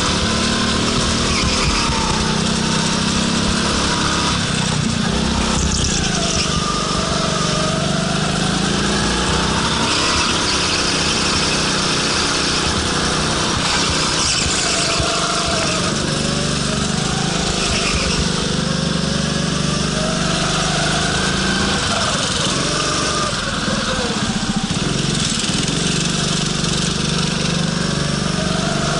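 Small go-kart engine running close by, its pitch rising and falling over and over as the throttle opens and closes through the corners.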